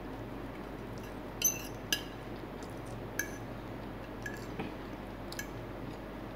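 Metal fork clinking and tapping against a plate while picking up noodles: a few sharp clinks, the two loudest about a second and a half and two seconds in, then lighter taps.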